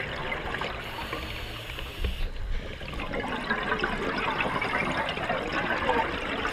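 Scuba regulator exhaust bubbles heard underwater, a bubbling, crackling rush that grows denser from about three seconds in and eases off near the end.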